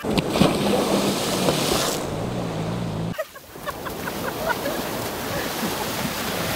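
Sea surf breaking and washing up over the sand, a steady rushing noise with wind buffeting the microphone; it drops away sharply for a moment about three seconds in, then comes back.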